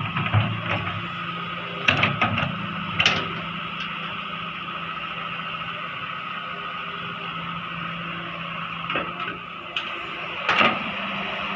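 Heavy excavator's engine running steadily, with sharp metallic clanks and knocks from the machine working: a cluster at the start, around two and three seconds in, and a loud one near the end.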